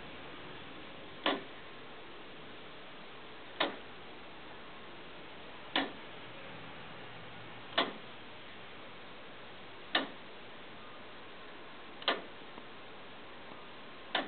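Hand-made all-wood foliot clock with a verge-and-foliot escapement ticking slowly, one sharp wooden tick about every two seconds.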